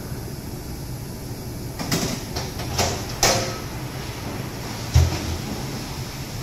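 Sheet-metal cabinet door of a steel workbench being opened with a few sharp metallic clanks and rattles, then shut with a single deep thud about five seconds in, over a steady low workshop hum.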